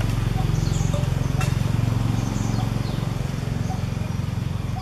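A steady low droning hum, with faint short high chirps and an occasional click over it.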